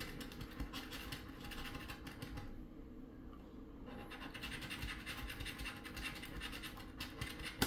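A coin scraping the scratch-off coating from a paper lottery ticket in quick, rasping strokes, with a short lull about three seconds in.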